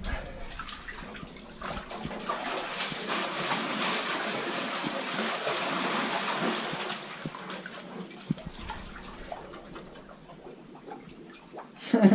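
Floodwater sloshing and splashing around a person wading down into a flooded submarine compartment. It is loudest a couple of seconds in and fades over the last few seconds.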